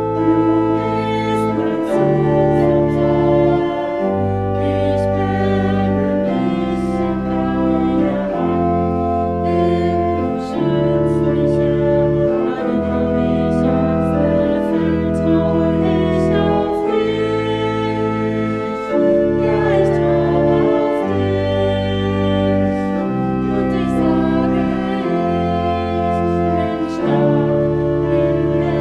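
Church pipe organ playing a slow piece of sustained chords over a deep bass line that steps to a new note every second or two.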